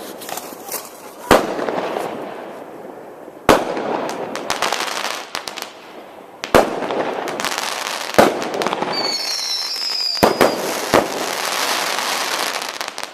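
Consumer fireworks going off: about six sharp bangs a second or two apart, each followed by crackling that trails away.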